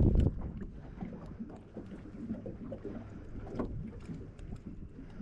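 Wind buffeting the microphone aboard a small open fishing boat, an uneven low rumble that is loudest in a gust at the very start, with scattered light knocks.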